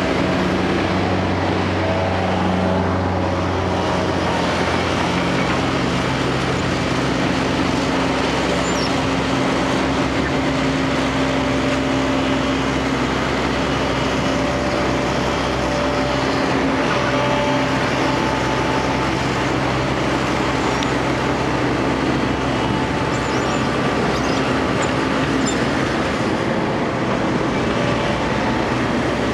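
JCB JS220 hydraulic excavator's diesel engine running steadily under load while it slews and then travels on its steel tracks; the engine note changes about five seconds in.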